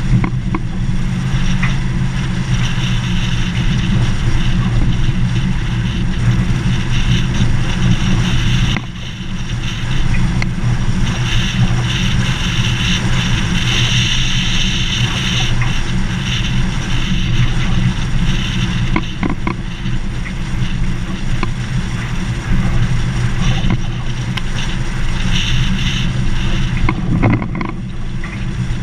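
Vehicle engine droning steadily with tyre and road noise from driving on a gravel dirt road, with a few short clicks and knocks from the rough surface. The sound dips briefly about nine seconds in.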